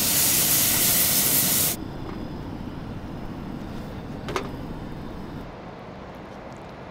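Ling cod fillets sizzling in a hot cast-iron skillet on a camp stove, a loud steady hiss that cuts off abruptly about two seconds in. A quieter stretch follows, with a single sharp click a little past four seconds.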